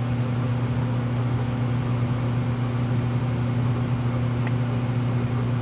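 A steady low machine hum with a constant hiss, like a motor or fan running in the shop, holding the same pitch and level throughout.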